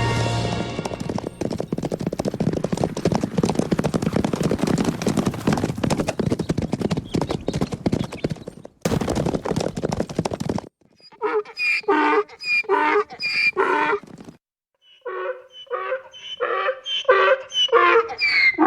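Dense clattering noise for about nine seconds, then, after a short break, two runs of quick, repeated pitched animal cries.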